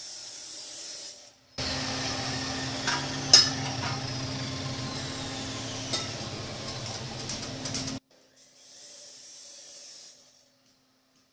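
Metal workshop sounds: a steady machine hum with hiss, and a few sharp metallic clicks and knocks as steel pipe is worked, broken up by abrupt cuts. The loudest knock comes a little over three seconds in, and the last few seconds are much quieter.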